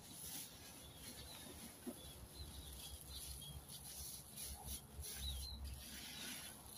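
Faint chirps of small birds, short high calls scattered through, over a low steady rumble.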